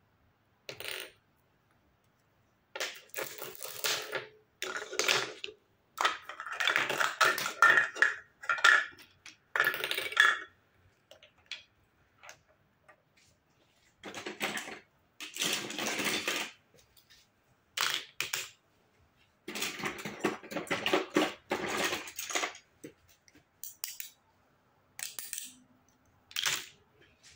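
Plastic toy kitchen pieces (toy cutlery, plates and play food) clicking and clattering against each other and the table as they are handled and set down, in irregular bursts with a few quiet pauses.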